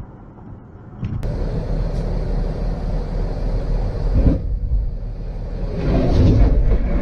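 Vehicle travelling at highway speed, heard from inside the cab: a steady drone of engine and tyre noise. It jumps louder after a click about a second in and swells again near the end.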